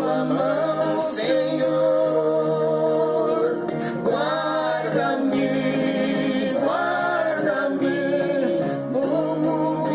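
Voices singing a Portuguese Christian hymn in long held, wavering notes over a steady sustained accompaniment.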